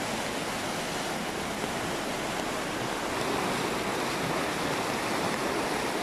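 Fast-flowing, milky-grey mountain river rushing past a concrete wall in its bed: a steady rush of water, a little louder about halfway through.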